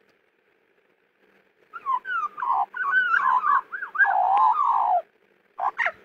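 Young Australian magpie warbling: a loud run of fluting notes that slide up and down, starting about a second and a half in and breaking off near the end, followed by a short call.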